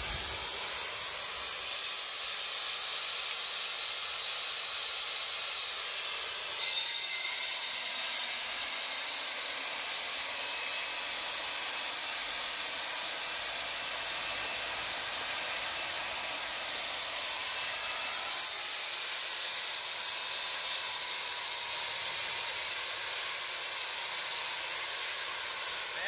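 Hilti DD 200 diamond core drill running steadily, its water-cooled core bit cutting down into asphalt: an even hiss with a steady high-pitched whine over it.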